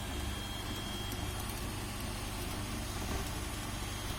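Flsun Cube 3D printer running, a steady mechanical hum with a faint high tone in the first second or so.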